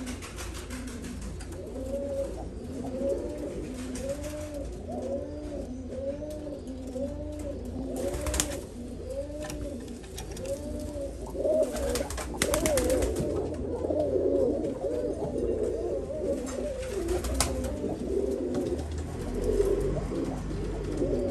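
Domestic high-flying pigeons cooing: a regular run of rising-and-falling coos, then several birds cooing over one another from about halfway through. A few short rustling noises are mixed in.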